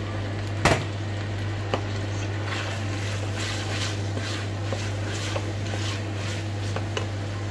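A spatula stirring diced prosciutto and onion in a stainless steel saucepan: a sharp knock against the pot under a second in, then a run of short scraping strokes. A steady low hum underneath.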